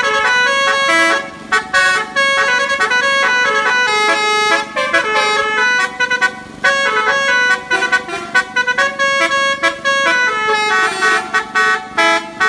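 Telolet basuri musical bus horn playing a fast melody of short stepping notes, with a few brief breaks in the tune.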